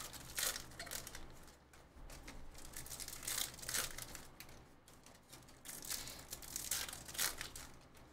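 A foil Bowman University Chrome basketball card pack being torn open by hand, its wrapper crinkling and crackling in several short spells.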